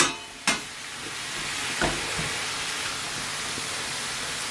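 Sliced peppers, onions and mushrooms sizzling steadily in olive oil in a frying pan, caramelizing. A few sharp knocks in the first two seconds.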